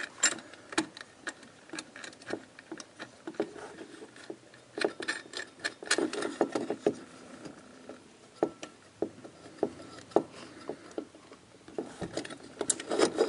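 Irregular light metallic clicks and taps of hands working small metal parts at a dishwasher's electrical junction box: fitting the toothed locknut that holds the supply wires. The clicks come in denser clusters about five seconds in and again near the end.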